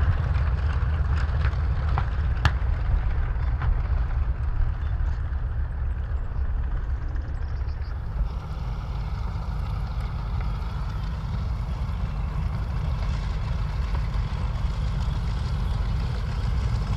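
B-25 Mitchell's twin Wright R-2600 radial engines running, a deep steady rumble, with a sharp click about two and a half seconds in.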